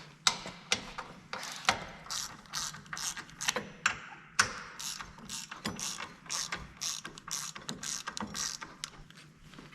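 Hand ratchet with a T55 Torx bit clicking in quick runs as it works a Jeep TJ's front bumper bolts loose by hand.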